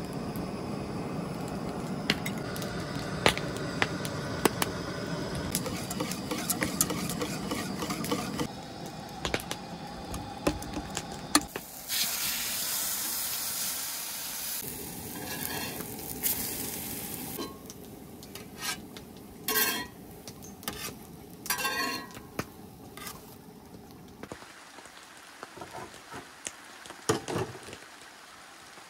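A wire whisk beating French toast batter in an aluminium pot, scraping and clinking against the metal, with sharper clinks of metal tongs on the pot. About twelve seconds in comes a few seconds of sizzling, then scattered clinks.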